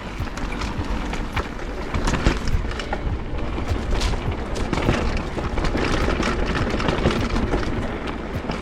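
Mountain bike riding fast downhill over loose rocks: a constant clatter of tyres striking stones and the bike's frame and chain rattling, over a heavy rumble of wind and vibration on a helmet-mounted camera.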